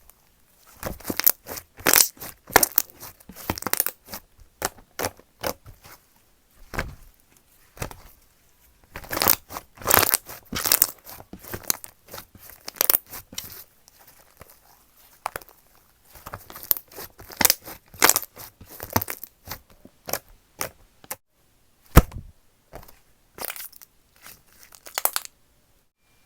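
Slime being squished and pressed by hand, with crackling, popping clicks in irregular bursts. It stops about a second before the end.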